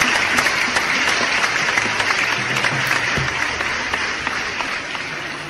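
Applause: dense, steady clapping that slowly fades over the last second or two.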